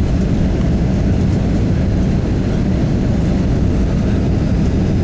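Airbus A320 cabin noise on approach to landing: a steady, loud low rumble of the engines and rushing air.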